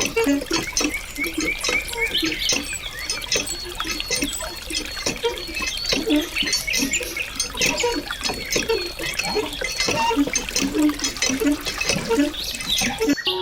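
Small stream of water trickling and splashing, with many quick little plops and drips, until it cuts off abruptly near the end.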